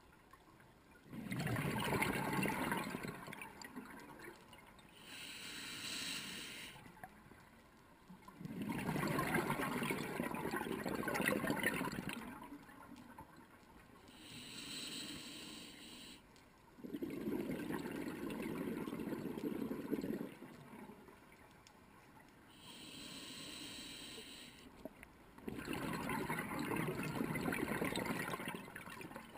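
Scuba diver breathing through a regulator: a long rush of exhaled bubbles four times, each followed by a shorter, quieter hiss of inhaled air, a full breath about every eight to nine seconds.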